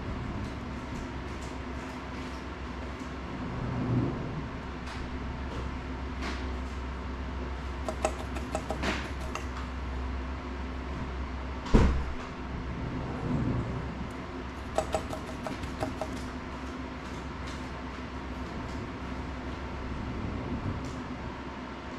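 Steady low room hum with scattered small clicks and taps of tools and small parts being handled while soldering electronics, and one sharp thump about twelve seconds in.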